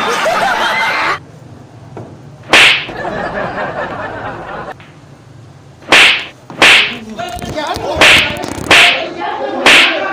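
Six loud, sharp slap cracks: one about two and a half seconds in, then five in quick succession from about six seconds on, with men's voices shouting between them in a scuffle. The first second is a studio audience laughing and clapping.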